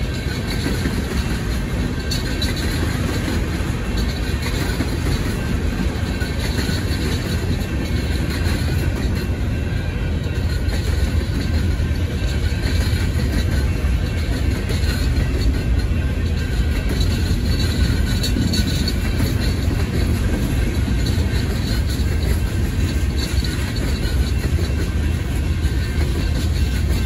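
Freight cars of a Union Pacific train rolling steadily through a road grade crossing: a continuous low rumble of steel wheels on rail as tank cars and then boxcars pass.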